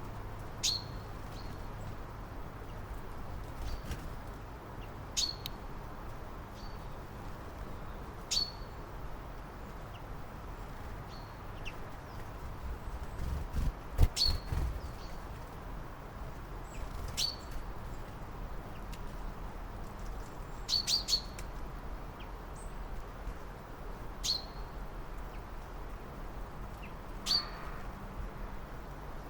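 A small bird giving short, sharp chirps, each a quick downward sweep, one every second or two, with a quick run of three a little past two-thirds of the way through. Under them runs a steady low rumble, with a few dull thumps around the middle.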